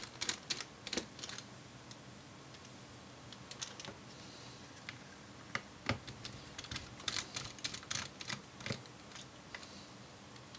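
Light, scattered clicks and ticks of a precision screwdriver turning out the small screws that hold a MacBook Pro's cooling fan, coming in irregular clusters.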